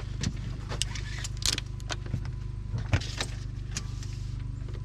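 A steady low engine hum runs throughout, with about half a dozen sharp knocks and clicks scattered over it.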